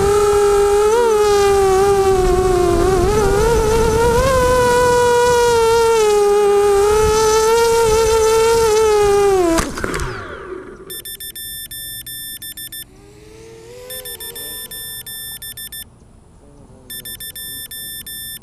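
Electric motors and propellers of an RC aircraft whining at a high pitch that wavers with the throttle. About ten seconds in there is a sharp hit on the ground and the whine spins down and dies away. After that, rapid electronic beeping comes in bursts of about two seconds, repeating every three seconds.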